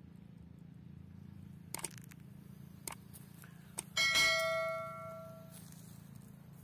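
Subscribe-button overlay sound effect: a few short mouse-click sounds, then about four seconds in a single bell ding that rings and fades away over about a second and a half.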